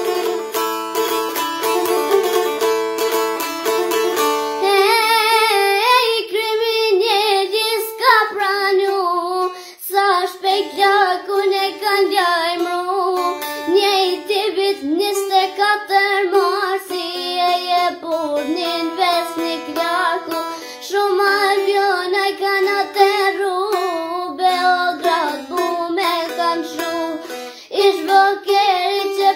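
A girl singing an Albanian folk song to çifteli accompaniment. The two-string long-necked lute plays alone at first, its quick plucked notes repeating, and her voice comes in about five seconds in and carries the melody over the instrument.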